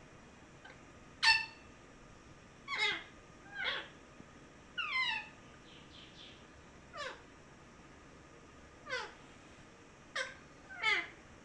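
Pet parrot giving repeated short calls, each a steep downward sweep in pitch, one every second or so.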